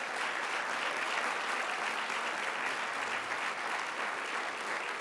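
Audience applauding: many people clapping, a steady dense patter that fades slightly near the end.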